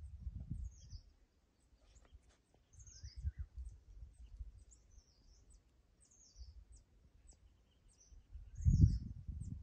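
Wind buffeting the microphone in gusts, strongest near the end, with birds chirping in quick high calls throughout.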